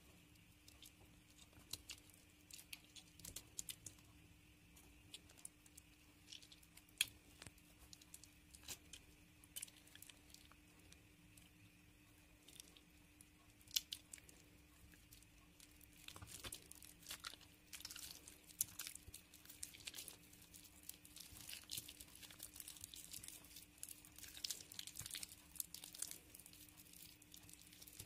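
Water-soaked soap squeezed and crumbled by hand: soft wet crackling and squishing, sparse at first and growing much denser about halfway through.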